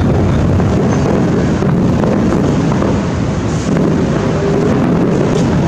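Fireworks going off in a dense barrage far away, blending into a steady low rumble with a few faint cracks on top.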